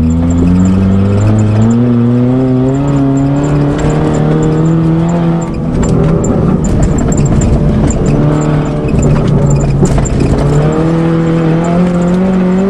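1992 Eagle Talon's four-cylinder engine accelerating hard under load, heard from inside the car. Its pitch climbs, drops back at a gear change about two seconds in, climbs again, eases off around the middle, and rises once more near the end.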